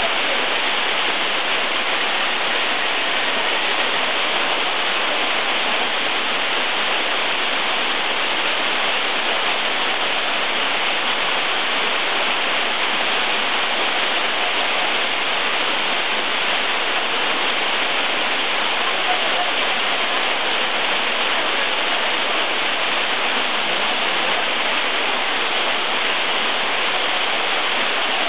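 Waterfall pouring steadily: a constant, unbroken rush of falling water.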